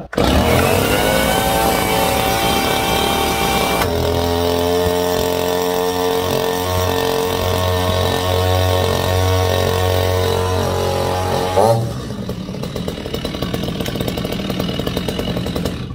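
Stihl MS 230 two-stroke chainsaw engine running fast on its cold-start setting, the throttle held up rather than settling to idle. Its note changes about four seconds in, it runs quieter from about twelve seconds in, and it stops near the end.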